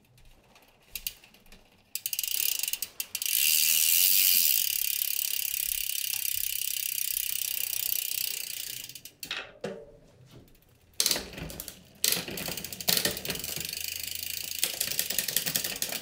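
Mountain bike drivetrain turned over by hand in a work stand: the chain runs over the rear cassette and through the rear derailleur with a steady whirring rattle for several seconds. After a few clicks there is a run of faster mechanical ticking from about eleven seconds in.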